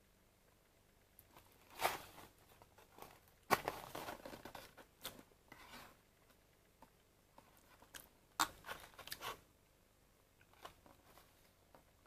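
Cardboard tea-bag box rustling and crackling as it is handled and turned in the hands, in short bursts about two seconds in, from about three and a half to five seconds, and again around eight and a half seconds.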